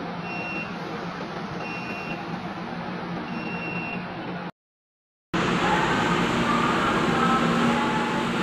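Steady running noise inside a crowded metro train car, with three short high electronic beeps about a second and a half apart. After a brief cut, louder, echoing station-platform noise follows, with a wavering whine from the train alongside it.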